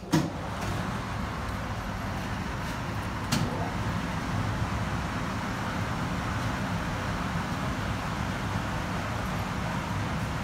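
Electric cabinet tea leaf dryer running with a steady rushing noise. A click comes right at the start and a single knock a little over three seconds in.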